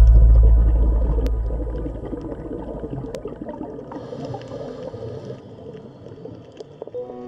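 Underwater ambience: a deep low rumble fades over the first two seconds into a bubbling, gurgling water texture with scattered faint clicks.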